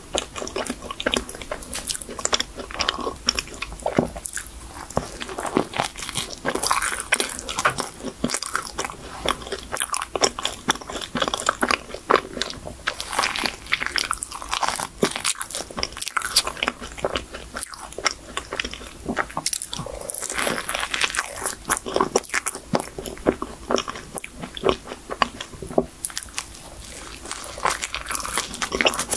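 Biting and chewing a chocolate cream-filled choux puff: soft crunches from the pastry shell and a dense run of quick mouth clicks.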